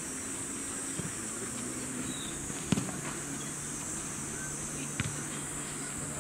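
A soccer ball is kicked sharply three times in play, the loudest kick about two and a half seconds in, over a steady high-pitched insect drone. A low hum comes in about a second and a half in.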